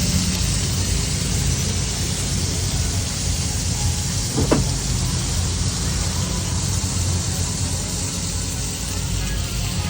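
Steady street noise with the low rumble of passing traffic, and one brief sharp pitched sound about halfway through.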